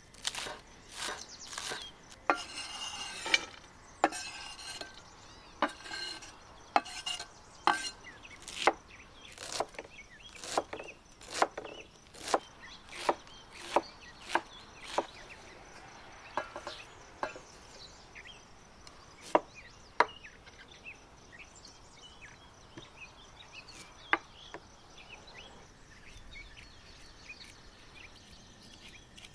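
Half-moon knife chopping green onions and leafy greens on a wooden cutting board: sharp knocks of the blade on the wood about once a second, with crisp crunching of the stalks between them. The chopping thins out after about 17 seconds to a few separate knocks.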